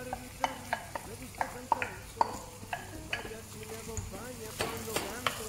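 Diced onion frying in oil in a pot, a steady sizzle, as diced bell peppers are tipped in and stirred with a wooden spoon. Short irregular knocks and scrapes come from the spoon against the plate and the pot.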